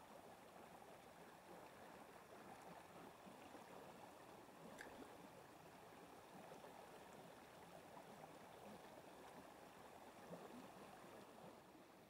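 Faint, steady rush of a small shallow creek flowing.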